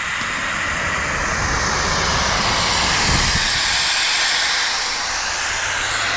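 Air hissing steadily out of an off-road tire through a screw-on automatic tire deflator, airing the tire down for the trail.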